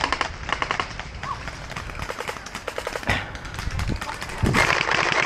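Electric gel blasters firing in rapid full-auto bursts, a fast rattle of shots. There is one burst at the start, a fainter volley about two seconds in, and the loudest burst near the end.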